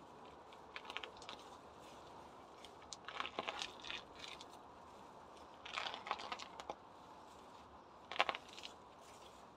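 Loose pebbles clicking and rattling against each other in four short bursts, the sharpest near the end, as weeds are pulled from the gravel bed.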